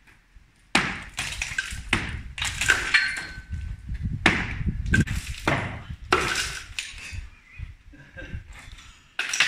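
Hand hammer blows breaking out the brickwork and masonry of a balcony: about ten uneven strikes, some ringing briefly.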